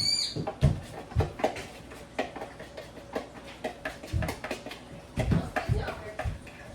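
Scattered clicks and knocks with several dull thumps, irregularly spaced.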